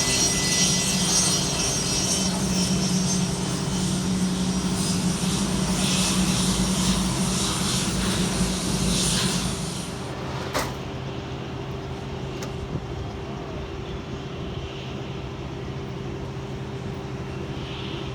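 Airplane engines running with a steady hum and high whine. About ten seconds in, the sound drops in level and loses its high hiss, with a single sharp click just after.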